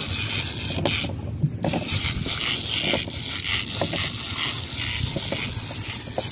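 Steady boat noise at sea, a low hum with wind and water, with scattered light clicks and scrapes from the fishing rod and overhead reel being worked against a hooked fish.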